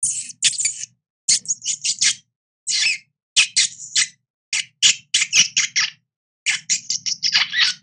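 Small rodent squeaking: quick runs of two to five shrill, high-pitched squeaks, broken by short silences.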